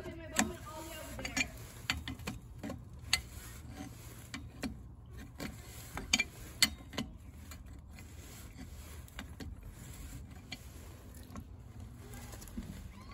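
Sharp metallic clicks and knocks of two adjustable pipe wrenches gripping and turning the union nut of a water pressure reducing valve. The clicks are scattered and come most often in the first seven seconds, over a steady low rumble.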